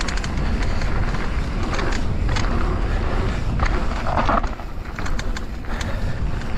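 Mountain bike rolling down a dirt singletrack: a steady rumble of knobby tyres on packed dirt and loose gravel, with scattered ticks and rattles from the bike over small stones and bumps.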